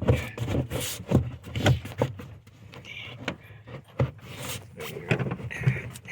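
A piece of plywood being forced into a tight gap: irregular knocks and scraping of wood against the car's metal.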